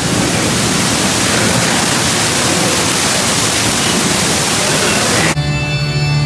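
Artificial waterfall inside a mine ride's cave, rushing water heard as a steady loud hiss. About five seconds in it cuts off abruptly and gives way to music with long held notes.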